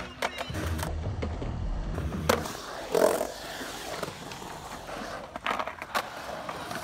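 Skateboard wheels rolling and grinding over a concrete bowl, with several sharp clacks of the board hitting the concrete, the loudest about three seconds in and a cluster of smaller ones near the end.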